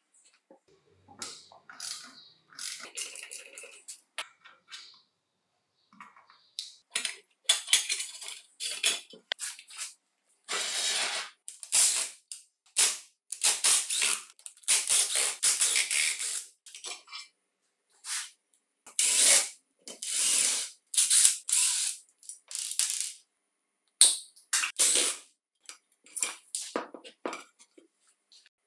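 Disassembly of an old aluminium-housed circular saw: a socket tool on the blade bolt and a cordless screwdriver running out the handle screws. Many short clicks and metal clinks, with noisy bursts of a second or two through the middle and short gaps between them.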